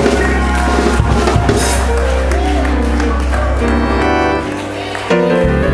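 Church band playing under a sermon: sustained Hammond-style organ chords over a bass line and drum kit. The bass drops away about four seconds in and comes back about a second later.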